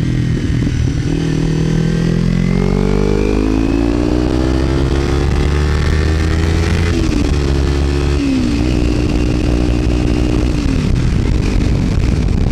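Kawasaki Ninja 300 parallel-twin engine through a Screaming Demon slip-on exhaust, pulling up through the revs with its pitch rising. It dips briefly at gear changes about seven and eight and a half seconds in, then holds steady.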